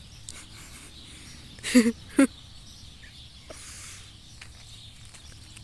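Two short, loud animal calls about half a second apart, over a faint background of chirping.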